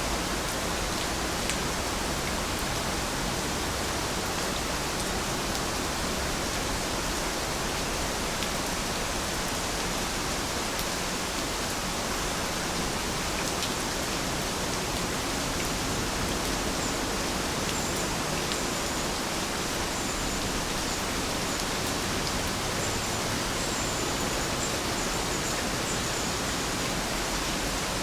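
Heavy rain falling steadily: a dense, even hiss with a few sharper drop ticks.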